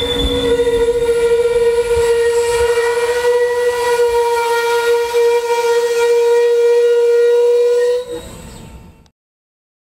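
Amtrak Superliner passenger cars rolling slowly past with a steady, high metallic squeal from the slowing train's wheels. The squeal holds one pitch, drops away about eight seconds in, and the sound cuts off suddenly about a second later.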